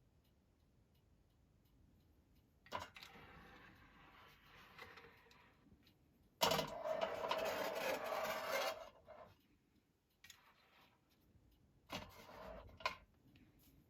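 Tin toy cars being handled, with rubbing and scraping in several bouts, the loudest near the middle, and a sharp click near the end.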